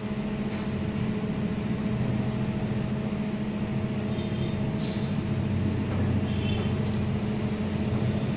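Steady mechanical hum with a few held low tones, with a few faint clicks over it.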